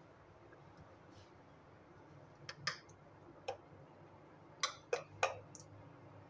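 Steel spoon pressing chopped nuts into barfi mixture in a metal non-stick pan, clicking lightly against the nuts and the pan. About half a dozen scattered light clicks begin about two and a half seconds in.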